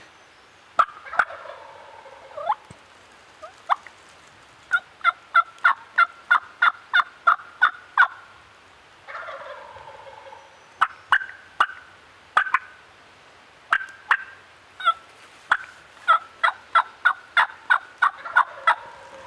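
Turkey gobbling twice, each gobble about a second and a half long, with long runs of short, sharp yelps at about three a second between and after the gobbles.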